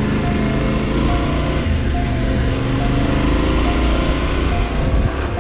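Yamaha Ténéré 700's parallel-twin engine pulling at road speed and gently gathering pace, with a steady rush of wind noise over it.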